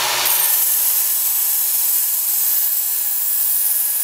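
Work Sharp Ken Onion Edition powered belt sharpener running, with a steel knife edge held against its moving abrasive belt: a steady grinding hiss as the blade is sharpened, with extra passes where no burr has formed yet.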